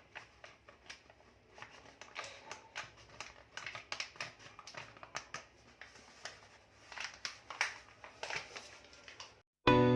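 Irregular rustling and scraping as flour is scooped and measured out from its packet. Guitar music cuts in right at the end.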